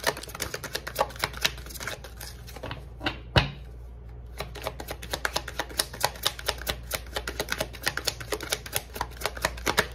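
A deck of oracle cards being shuffled by hand: rapid crisp flicks of card against card at several a second, pausing about two seconds in, with one louder knock about three seconds in, then more shuffling.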